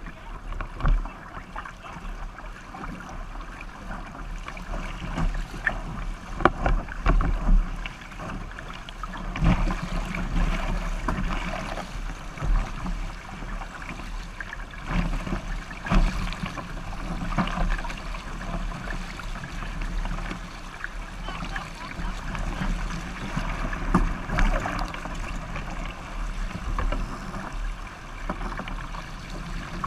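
Water rushing and splashing along the hull of an International 505 racing dinghy sailing fast through chop, with irregular slaps as the hull hits waves. Wind buffets the microphone, adding a low rumble.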